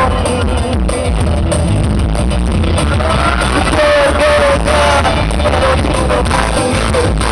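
Male singer performing a Malay pop song live through PA speakers over backing music. The sound is loud and distorted, picked up right beside the speakers, with a sung melody line standing out about three to five seconds in.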